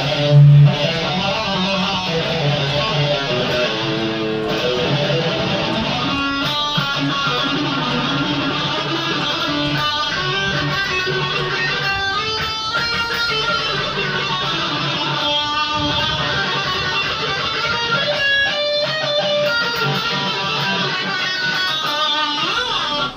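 Custom-built hybrid guitar played through its neck and bridge pickups together: strummed chords mixed with picked single notes, with a string bend near the end.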